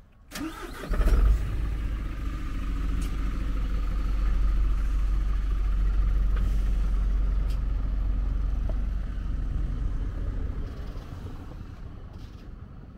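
Engine of a parked box truck cranking and catching about a second in, then idling steadily with a deep hum that fades near the end.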